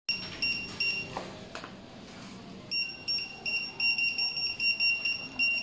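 E3P barcode scan engine's beeper giving short, high, steady beeps: three quick ones at first, then from a little under halfway a run of about three a second. Each beep is the scanner's good-read signal for a decoded barcode.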